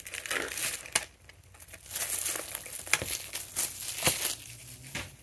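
Clear plastic packing wrap crinkling and crackling as it is pulled out and handled, in two spells with a short lull about a second in.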